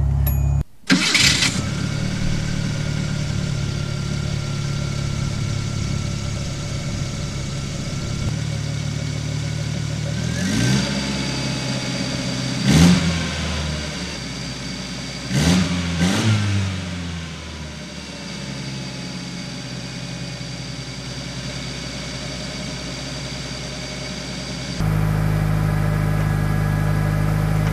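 1983 Datsun Sentra wagon's carburetted four-cylinder engine idling while still cold from a cold start. It is revved up briefly four times near the middle, each rev rising and dropping back to idle.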